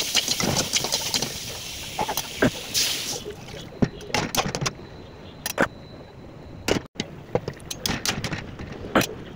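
Vegetables frying in hot oil in an aluminium karai, a loud sizzle with a metal spatula scraping and clicking against the pan. The sizzle cuts off suddenly about three seconds in, once the pan holds watery gravy. After that only scattered scrapes and taps of the spatula on the pan are heard.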